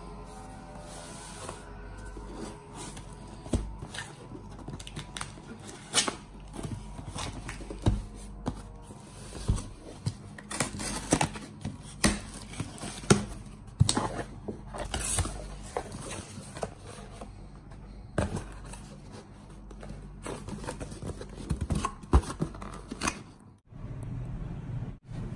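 A cardboard shipping box being opened by hand: a knife slits the packing tape, then the flaps and packing are pulled, scraped and rustled, with irregular sharp knocks and clicks.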